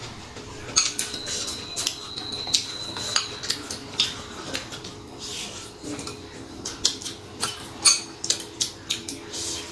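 Metal spoon clinking and scraping against a glass bowl of rice in a run of short, irregular clicks, with a high ringing note lingering for about two seconds near the start.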